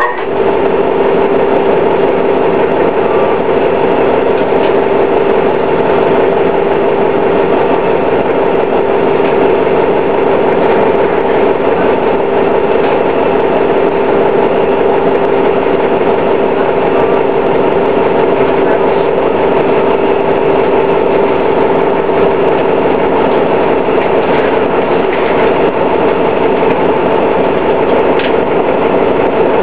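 Detroit Diesel Series 50 four-cylinder diesel of a 2000 New Flyer D60 articulated bus running at a steady speed, with a constant whine that holds one pitch throughout.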